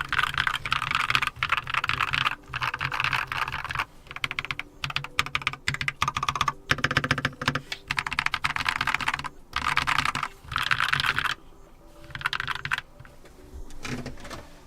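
Typing on a Keychron K2 QMK mechanical keyboard with factory-lubed Keychron Super Brown tactile switches, on a thin hollow desk, in fast runs of keystrokes. After about eleven seconds the typing becomes sparser and softer.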